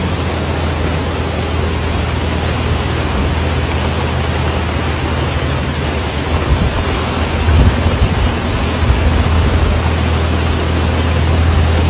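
Steady rushing noise of water, with a constant low rumble underneath that grows a little louder and more uneven from about seven seconds in.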